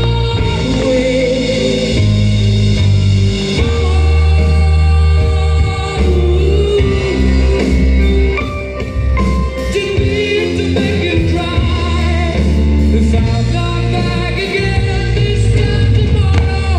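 Music with singing over deep, held bass notes that change every second or two.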